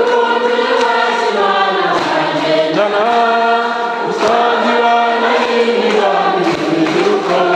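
Choir singing a slow hymn, the voices holding long notes in harmony.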